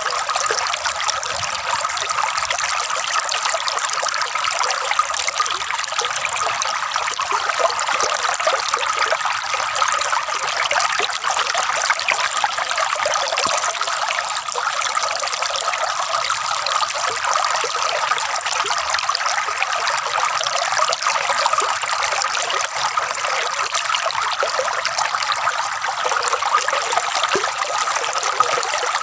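Water trickling and gurgling steadily, a dense splashing that sits high in pitch with little low rumble.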